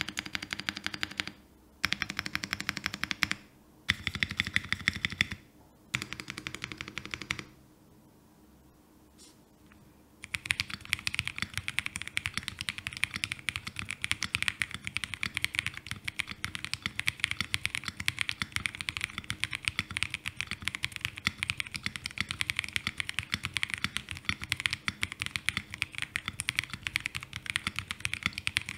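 Leobog K81 mechanical keyboard with its stock Ice Crystal switches being typed on. It starts with four short, fast runs of key presses, then a pause, then steady continuous typing from about ten seconds in.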